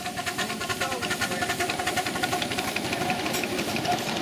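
Ridable live-steam miniature locomotive and its loaded riding cars passing close by on the track, with a quick, even beat of exhaust chuffs and wheel clatter.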